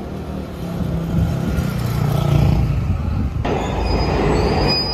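Electric commuter train running on rails: a steady low rumble, then the noisier sound of a train at a station platform, with a brief high-pitched squeal near the end.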